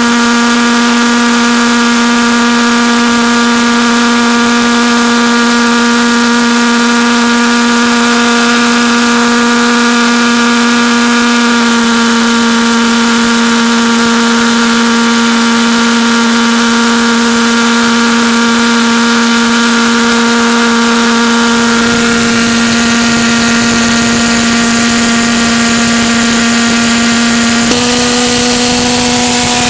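Stainless-steel valveless pulsejet (Beck Technologies 4 lb thrust Thermojet) running on propane: a loud, steady buzzing drone at one pitch with many overtones. Its pitch shifts slightly about a third of the way in, again about two-thirds in, and near the end.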